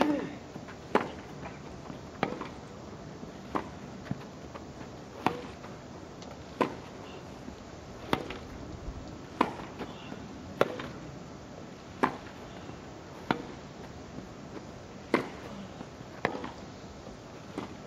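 Tennis ball struck back and forth by rackets in a long baseline rally on grass. There are about a dozen sharp strikes, one every second and a half or so, over a steady background hiss.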